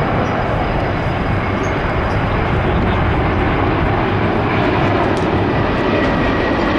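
Airbus A350 XWB's Rolls-Royce Trent XWB turbofans giving steady, loud jet noise as the airliner flies its display. A faint whine becomes audible in the second half, drifting slightly lower.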